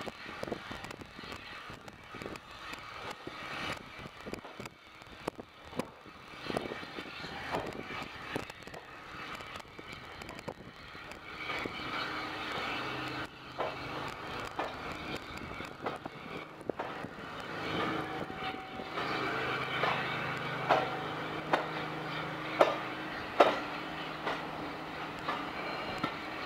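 Steam train pulling out of the station: the locomotive's exhaust beats carry on as it draws away, and its coaches roll past close by, steadily louder, with wheels clacking over the rail joints near the end.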